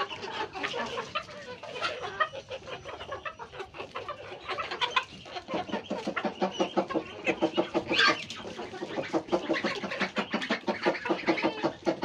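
A flock of chickens clucking in quick, busy runs while they feed, heads down pecking at worms in the soil; the clucking grows busier in the second half.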